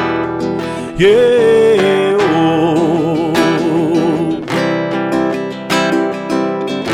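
Acoustic guitar strumming chords. A held melody note rises in about a second in and wavers with vibrato until about four and a half seconds.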